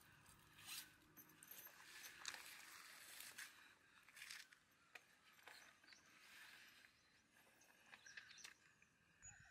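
Near silence, with faint scattered rustles and clicks.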